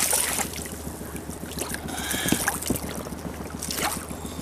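A hooked lenok splashing and thrashing at the surface right beside an inflatable PVC boat as it is lifted in by hand, with water slapping and lapping against the hull. The splashing is loudest at the start, with another splash shortly before the end.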